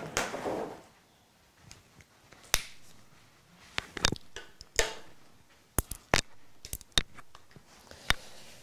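Handling noise close to the microphone: a brief rustle at the start, then a dozen or so scattered sharp clicks and taps as objects on the table are moved.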